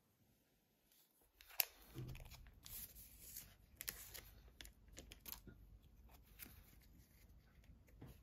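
Foil wrapper of a Pokémon card booster pack being torn open and crinkled, with a sharp crackle about a second and a half in and short crackles after it, as the stack of cards is slid out of the pack.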